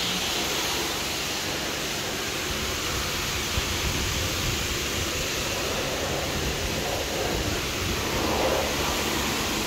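Self-service car wash high-pressure lance spraying: a steady hiss of water.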